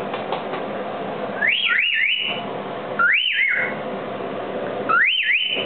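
Cockatiel calling: three short bursts of quick, high chirps that sweep up and down in pitch, each burst two or three chirps long.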